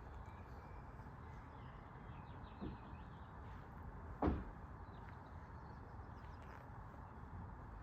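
A single sharp knock about four seconds in, with a softer knock a little earlier, over a steady low background noise and a few faint bird chirps.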